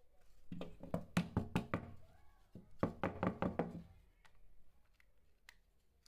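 Two quick runs of sharp knocking, each of about six to eight knocks, with a short pause between: the hard plastic parts of a dismantled TV remote being tapped.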